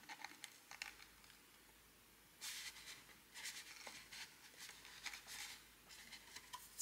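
Faint rustling and rubbing of craft paper in several short bursts, as fingers press a freshly glued flap of a paper gift box into place.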